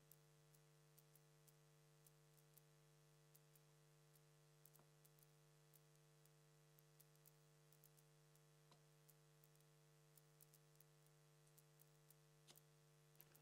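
Near silence: a low steady electrical hum with faint scattered ticks, and three slightly stronger faint taps about four seconds apart as darts land in the dartboard.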